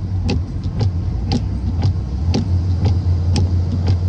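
Cab of a moving delivery box truck: steady low engine and road rumble, with a sharp tick repeating about twice a second.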